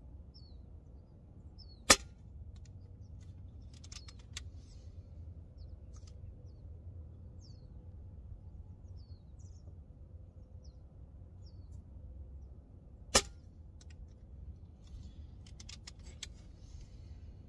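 Two shots from an FX Maverick .22 PCP air rifle, about eleven seconds apart, each one sharp report. Fainter clicks follow a couple of seconds after each shot.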